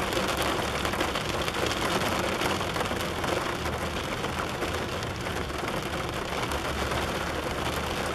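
Rain falling steadily on a car's roof and glass, heard from inside the car, with a low hum underneath.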